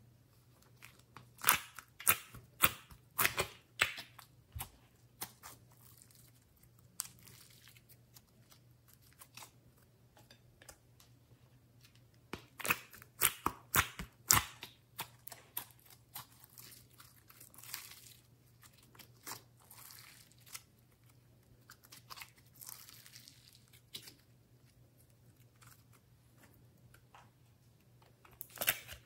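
Slime being pressed and pinched out of a clear plastic compartment tray, giving clusters of sharp sticky clicks and crackles with quieter gaps between.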